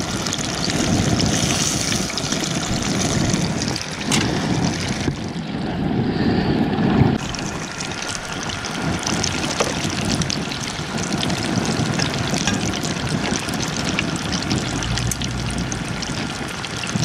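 Pieces of white perch deep-frying in hot grease in a small tabletop fryer basket: steady bubbling sizzle with fine crackles, the fish nearly done.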